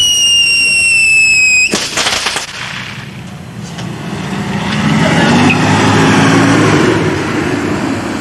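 A whistling firework: a shrill whistle slowly falling in pitch that ends with a sharp bang about two seconds in, followed by brief crackling. Then a motor vehicle swells up and fades away as it passes.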